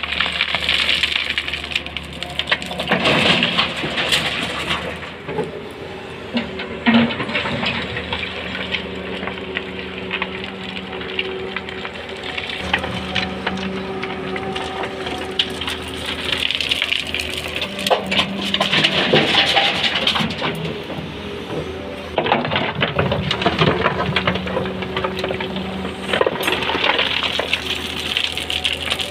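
Wheeled excavator's diesel engine running with a steady drone while its bucket scrapes into gravelly soil; several spells of stones and dirt rattling and pouring down as the bucket digs and lifts.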